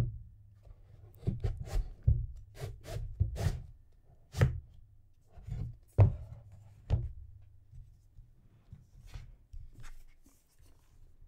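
Hardcover books and a cardboard case being handled and set down on a tabletop: a quick run of knocks and taps in the first few seconds, two sharper knocks a little past halfway, then quieter rubbing and light taps as they are slid and shifted.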